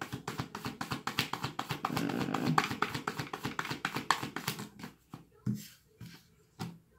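Deck of oracle cards being shuffled and handled, a quick run of crisp card clicks for about five seconds, then a few separate taps near the end.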